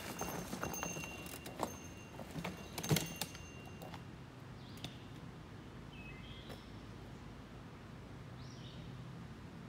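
Mountain bike clattering over trail rocks: a run of sharp knocks and rattles in the first few seconds, the loudest about three seconds in, then quieter. Birds chirp a few times in the second half.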